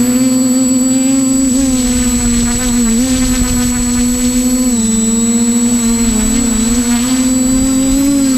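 Multirotor drone's motors and propellers (TBS Discovery Pro quadcopter) giving a loud, steady whine, the pitch wavering slightly up and down.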